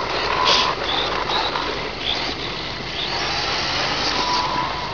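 Radio-controlled race trucks' motors whirring in short bursts as the trucks are driven into their grid spots, over a steady hissing background.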